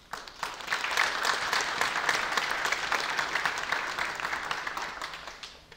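Applause from a small group of people clapping, building up just after the start and fading out near the end.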